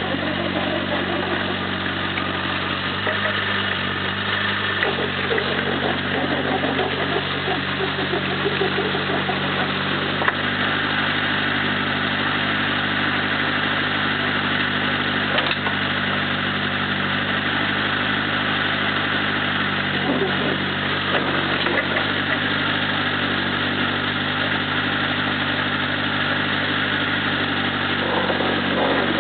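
CAMS 224s mini excavator's diesel engine running at a steady pitch while the machine digs, with a few sharp knocks along the way.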